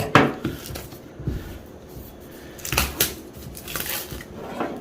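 A cardboard product box being handled and opened, with scraping of cardboard and a few sharp knocks: one at the start, one about three seconds in and one near the end.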